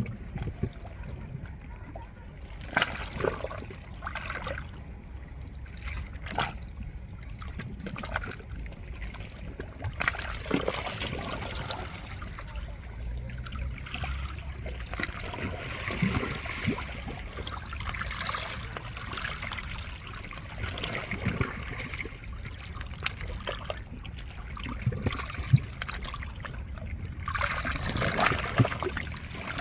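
Small waves washing over shore rocks, water trickling and splashing irregularly, with a louder wash near the end.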